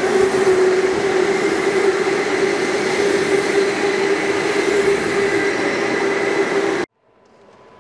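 Go-kart engines on an indoor track in a hall, running together as a steady, loud droning whine with one strong held pitch. It cuts off abruptly about seven seconds in, leaving a much quieter background.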